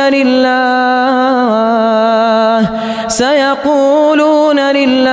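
A man's voice chanting Quran recitation in the melodic tajweed style, drawing words out into long held notes that bend slowly in pitch, with a short break a little past halfway.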